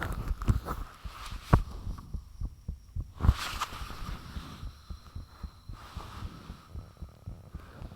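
A person's own heartbeat recorded close up, a run of low thumps, with a faint hum beneath. Two sharper, louder knocks come about one and a half seconds and about three seconds in.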